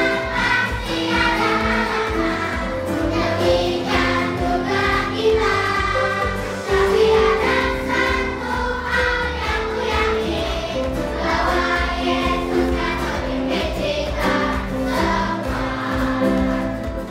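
A children's choir singing together over instrumental accompaniment.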